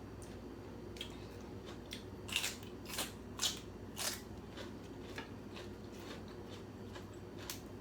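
Crisp crunching from biting into fresh raw vegetables while eating pho, a few sharp snaps about two to four seconds in, over a low steady room hum.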